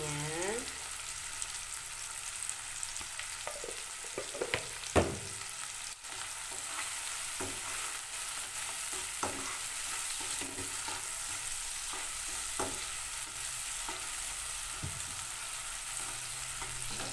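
Chopped shallots, chilies and tomato sizzling in hot oil in a wok while a slotted spatula stirs them, with scattered knocks and scrapes of the spatula on the pan; the sharpest knock comes about five seconds in.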